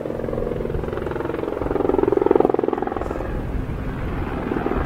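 Aircraft passing close by, a loud rumble with a rapid, even pulsing that swells to its loudest a little past two seconds in.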